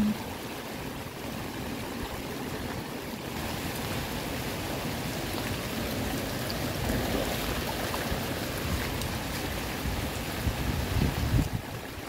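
Steady hiss of rain and running water on a flooded, rain-soaked street in typhoon weather, with a few low irregular bumps near the end.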